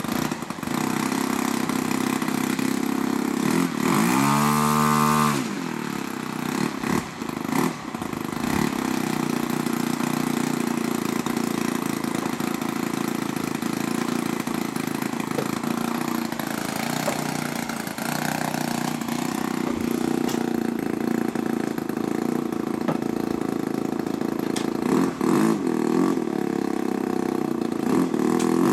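O.S. 120 Surpass four-stroke glow engine on a large model airplane, swinging a 16x6 propeller, running steadily. About four seconds in it revs up briefly and falls back, and near the end it starts to rev up again.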